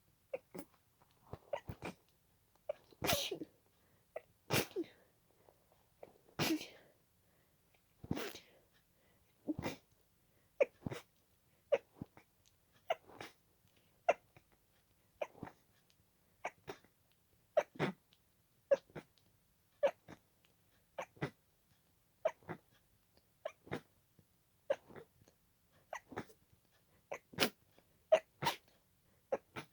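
A person sneezing over and over in a rapid fit, about one sneeze a second, the loudest and longest sneezes a few seconds in, then quicker, smaller ones.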